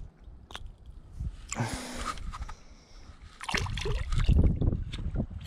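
Shallow water splashing and sloshing as a yellowfin whiting goes back into ankle-deep water at the angler's feet: a short splash about a second and a half in, then a longer, louder bout of splashing from about halfway through.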